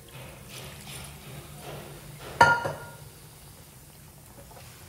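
Cookware clinking: one sharp metal clink with a short ring about two and a half seconds in, amid faint liquid sounds as chicken stock is poured into the kadhai.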